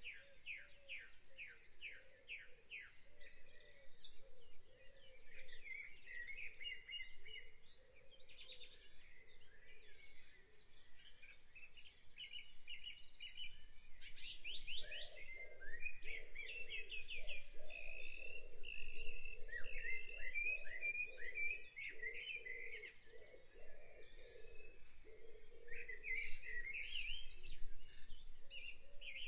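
Songbirds singing in a spring chorus: overlapping quick runs of repeated high notes and trills, one phrase following another without a break.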